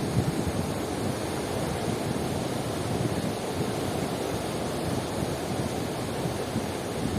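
Sea waves washing onto the shore in a steady, low rush that swells and eases gently.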